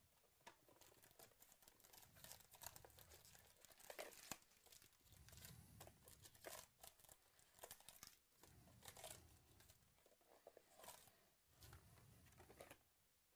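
Faint crinkling and tearing of cardboard and foil packaging as a Panini Illusions football card box is opened and its foil-wrapped packs are lifted out: irregular small crackles and rustles throughout.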